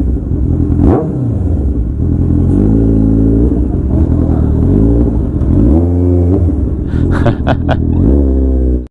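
Kawasaki Ninja 1000 inline-four engine with an SC Project full-system exhaust, loud and revving up and down several times, with a few sharp cracks from the exhaust about seven seconds in. The sound cuts off suddenly at the end.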